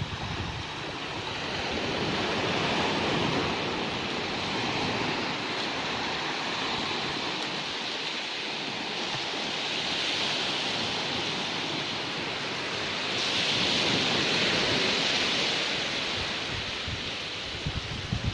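Steady rushing noise of waves and wind, swelling and easing every few seconds.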